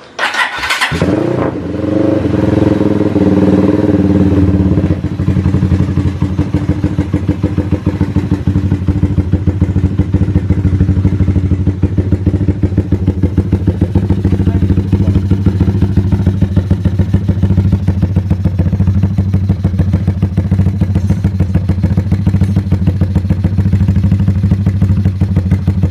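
Motorcycle engine fitted with a chrome aftermarket exhaust, started and held at raised revs for the first few seconds, then settling to a steady idle with an even, rapid exhaust pulse.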